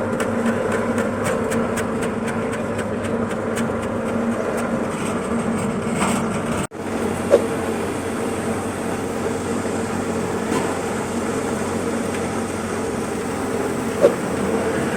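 A motorised chip-slicing machine running steadily with a constant hum, with rapid ticking in the first half and two sharp knocks later on.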